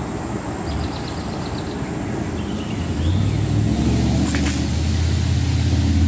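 A car going by on a road, heard as a low hum that builds from about halfway in and grows louder toward the end.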